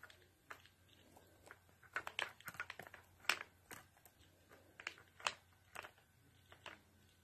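Irregular light clicks and crinkling taps, several a second at their busiest in the middle, with quieter gaps between.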